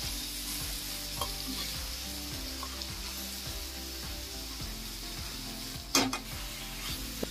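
Spiced vegetable sabzi sizzling gently in a metal kadhai while a metal spoon stirs freshly added coriander through it, with light scraping and small ticks against the pan. A brief louder knock comes about six seconds in.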